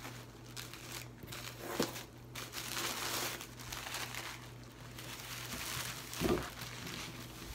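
Tissue paper rustling and crinkling as a wrapped bundle is pulled out and unwrapped by hand.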